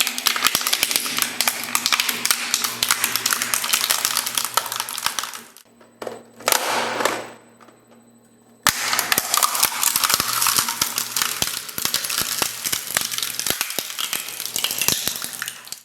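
Industrial shredder crushing and tearing material, a dense run of sharp cracks and snaps over the steady hum of its drive. The crushing drops away about six seconds in, returns in a short burst, then picks up again at full density about nine seconds in.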